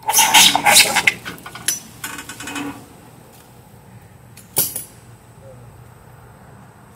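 Metal tools clinking and clanking against a bare diesel engine block, a busy run of sharp clinks for the first three seconds, then one sharp clank about four and a half seconds in.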